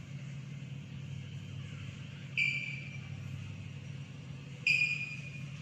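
Chalk squeaking on a blackboard while a word is written: two short high-pitched squeals, about two seconds apart, over a steady low hum.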